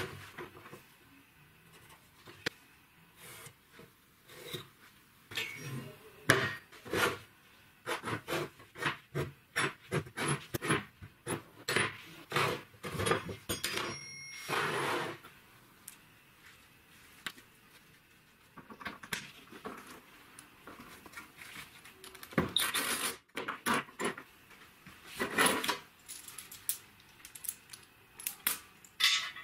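Small cut pieces of steel strip knocking, clinking and clattering as they are handled and set down on a wooden workbench, in quick runs of taps with quieter gaps between them and a brief metallic ring about 14 seconds in.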